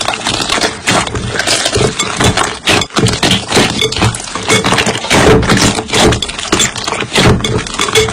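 Slime being squeezed and pressed by hand, with dense, irregular crackling and popping clicks.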